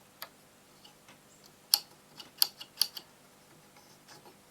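A handful of short, sharp clicks and taps, one just after the start and a quick cluster from about one and a half to three seconds in, over a faint steady mains hum. They fit hand contact with the controls or parts of a valve radio on the bench, while the radio itself gives no audio.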